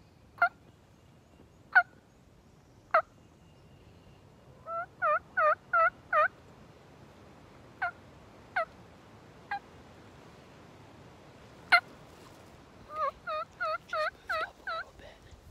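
Turkey yelps and clucks: sharp single clucks about a second or so apart, a run of about six yelps about five seconds in, a few more clucks, then a longer run of yelps near the end.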